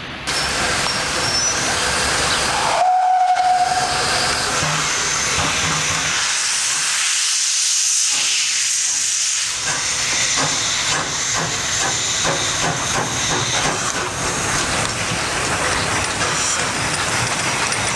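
Small steam tank locomotive drawing slowly closer, steam hissing from its open cylinder cocks. About three seconds in there is a brief whistle toot, and from the middle on there are more and more clicks and clanks from the running gear.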